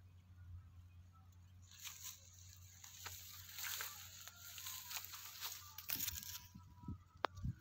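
Ripening rice plants rustling and crackling as their leaves and grain heads are brushed aside, from about two seconds in for some four seconds, then a few light knocks near the end.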